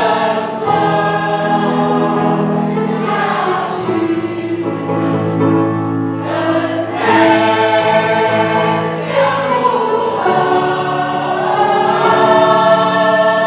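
A choir singing a slow song together, holding long notes that change every second or two.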